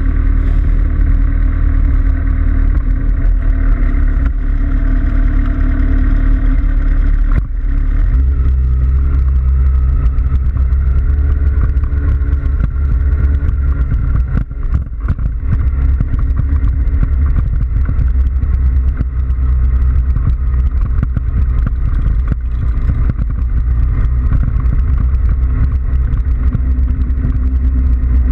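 Motorcycle engines running at low speed as a group of bikes rolls off together, with a heavy low rumble. The pitch of the nearest engine steps up about seven or eight seconds in.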